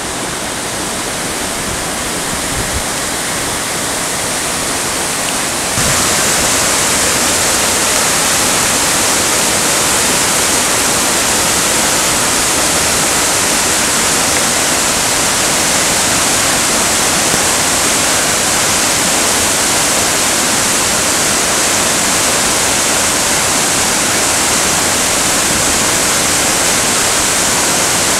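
Whitewater river rapids rushing steadily and loudly. The rush gets louder and brighter about six seconds in.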